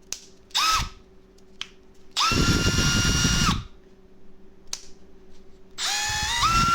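Milwaukee M12 Fuel cordless drill/driver's brushless motor spinning free, with no bit in, in three trigger pulls: a brief blip, a steady whine of about a second and a half, then a run that climbs in speed in steps as the trigger is squeezed further. Light clicks come between the runs.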